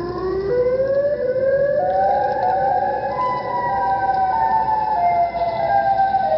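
A played-back, siren-like wailing tone that climbs in pitch in steps over the first few seconds, then dips slightly near the end.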